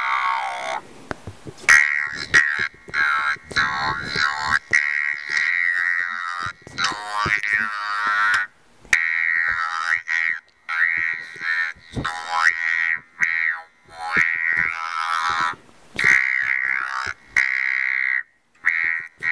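Talk box fed with a phone's electronic tone, shaped by the mouth into spoken syllables: a level-pitched robotic voice reciting a poem in phrases with short pauses between them.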